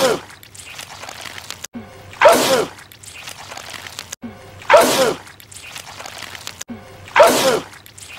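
A man's wet, loud sneeze, the same sneeze looped over and over, with one about every two and a half seconds, four in all. Each breaks in abruptly after a sharp cut, with a falling cry, then a spray of noise.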